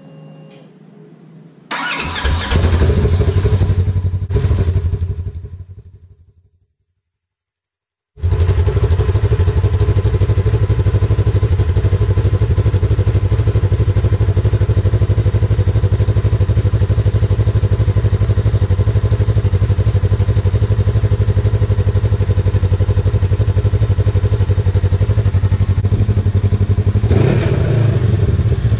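Polaris RZR XP1000's parallel-twin engine running through its stock exhaust. It comes in loud about two seconds in and dies away over a few seconds. After a short silence it runs again at a steady, evenly pulsing idle.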